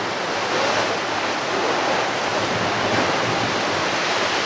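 Ocean surf washing onto a beach: a steady rush of wave noise that swells gently about a second in and again about three seconds in.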